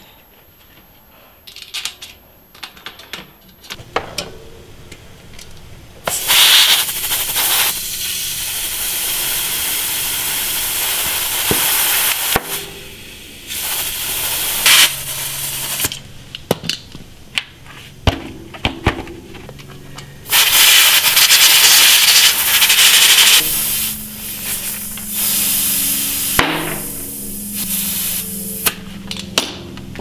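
Two long bursts of loud hissing with shorter hisses around them, between sharp clicks and knocks of tools on a bike.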